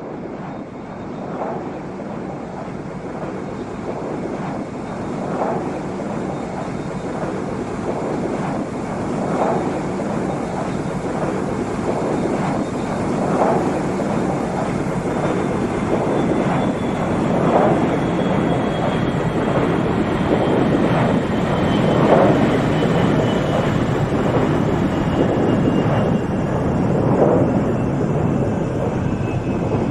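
An aeroplane flying by: a steady rushing engine noise that grows slowly louder, swelling every few seconds, with a faint high whine that slowly falls in pitch.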